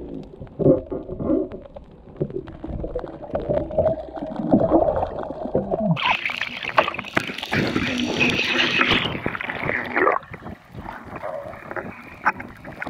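Muffled underwater gurgling and water noise picked up by a free-diver's camera. About six seconds in comes a louder hissing rush of water and air lasting about four seconds, then quieter clicks and gurgles.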